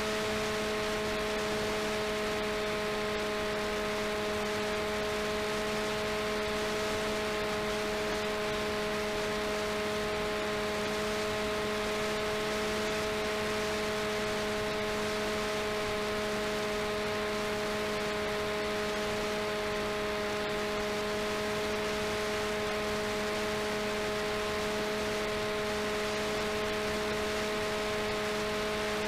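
Onboard sound of a delta-wing RC plane's RCTimer 5010 630KV brushless motor and propeller at steady cruise throttle: a constant hum with several steady tones over a hiss of airflow, unchanging throughout.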